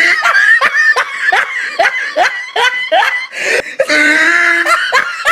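People laughing hard, with a rapid run of short laughing bursts at about two or three a second.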